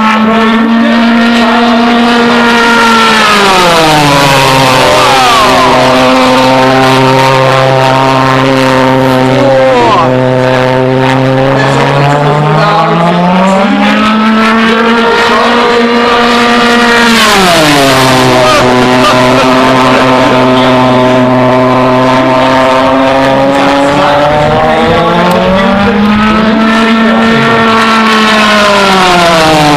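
Pulse-jet engine of a fast radio-controlled model jet, a loud, continuous buzzing drone rich in overtones. Its pitch drops sharply each time the plane flies past: a few seconds in, again just past halfway, and once more near the end, climbing back between passes.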